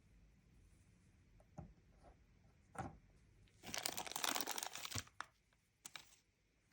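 Toy packaging being handled and opened: a few light taps and clicks, then a burst of tearing and crinkling lasting over a second about three and a half seconds in, and two more clicks near the end.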